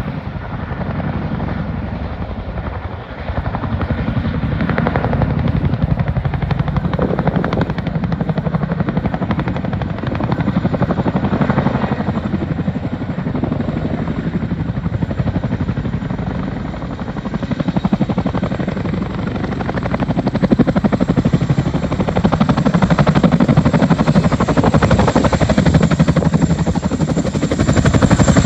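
Two Boeing CH-47 Chinook tandem-rotor helicopters flying low past, their rotor blades giving a rapid, continuous chop. It grows louder over the last several seconds as the lead helicopter comes close, with a thin high whine above the chop.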